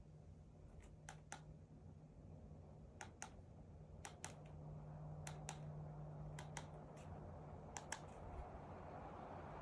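Small button clicked about six times at roughly one-second intervals, each press a quick double click, over a low steady hum. An airy hiss grows louder near the end.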